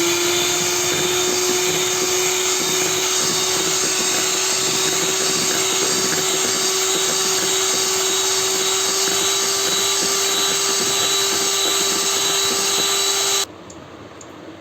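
Electric hand beater running steadily, beating butter into curd and powdered sugar for cake batter. Its hum climbs slightly in pitch, and it switches off abruptly near the end.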